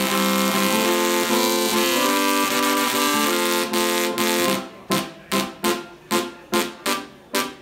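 Musical Tesla coil (dual-resonant solid-state Tesla coil) played from a keyboard, its arcs sounding buzzy, hissing notes that step through a melody over a low line. About four and a half seconds in it switches to short staccato buzzes repeated about three times a second.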